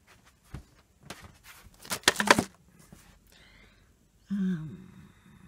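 A small clear plastic zip bag crinkling and rustling as it is handled, with a loud cluster of crackles about two seconds in. Near the end comes a short hummed sound from a woman's voice.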